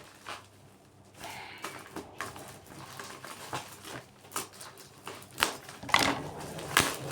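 Cardboard box and paper insert being handled: irregular rustling, scraping and light knocks, busiest near the end.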